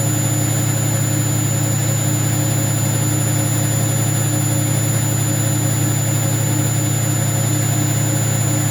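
Hoover washing machine that has gone haywire, running with a loud, steady low drone and vibration that does not let up.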